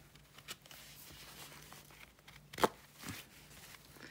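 Faint rustling of cross-stitch fabric being handled on a plastic Q-snap frame. There is one sharp click about two and a half seconds in as a clamp snaps onto the frame, and a few softer knocks around it.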